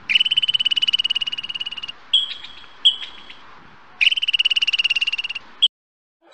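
An animal's high-pitched, rapidly pulsing trill. Two long trills of a second and a half to two seconds each are separated by two short trill fragments.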